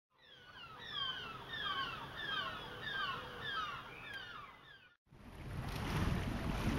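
Birds singing at dawn: a busy run of short, falling chirps repeated over and over. About five seconds in it cuts off abruptly to wind buffeting the microphone over a low rumble beside the river.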